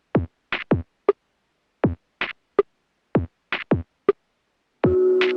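Electronic intro music: a drum-machine beat of separate hits with short silent gaps between them. A held synthesizer chord comes in near the end.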